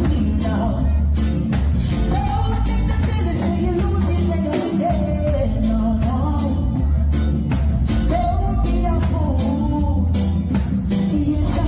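Live roots reggae: a male singer over electric bass and a drum kit, with a heavy bass line and a steady drum beat.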